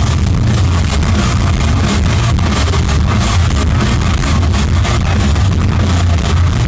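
Rock band playing live at full volume: distorted electric guitar, bass guitar and drums, with a heavy low end and a steady drum beat.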